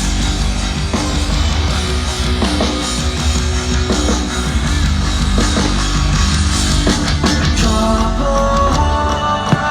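Loud rock music with guitars, the soundtrack of a fireworks display.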